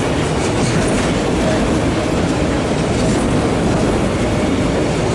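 Empty autorack freight cars of a CSX train rolling past: a steady rumble of steel wheels on the rails.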